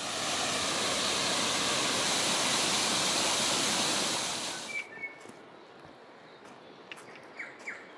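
Small waterfall splashing down over rocks, a steady rush of water that cuts off suddenly about four and a half seconds in. After that, much quieter forest with a few short high bird chirps.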